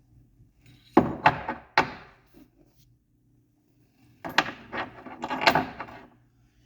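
Hand tools clattering and knocking as they are handled: three sharp knocks about a second in, then a longer run of clinks and knocks from about four seconds in.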